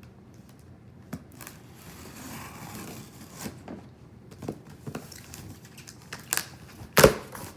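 Cardboard shipping box being opened by hand: packaging tearing and crinkling, with scattered rustles and knocks and one loud sharp knock about seven seconds in.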